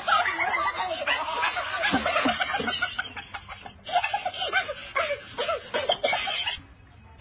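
People laughing and chuckling in short repeated bursts of voice, breaking off shortly before the end.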